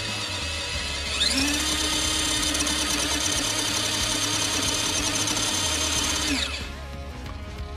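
Small electric drive motor and gearbox of a 1/14-scale JY66 4WD RC crawler whining: it spins up about a second in, holds a steady pitch for about five seconds, then winds down.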